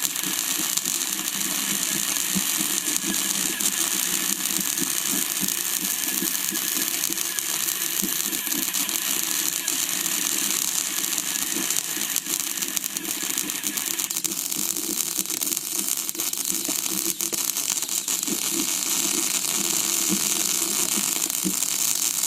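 Metal lathe running steadily, a mechanical rattle under a bright hiss.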